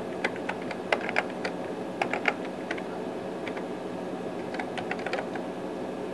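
Keystrokes on a computer keyboard, typed in irregular runs with a lull of a second or two in the middle, over a steady background hum.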